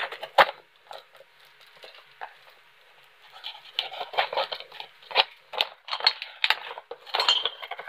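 A blade slicing the packing tape on a cardboard box with a sharp click, then tape and cardboard crackling and scraping as the box flaps are torn and pulled open.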